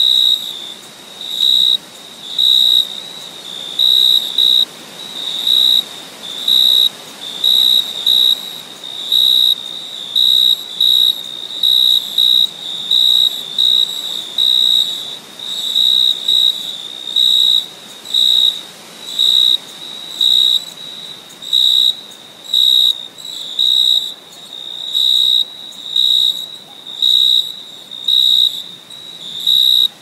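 A cricket chirping: a high, even chirp repeating about once a second, over a faint hiss.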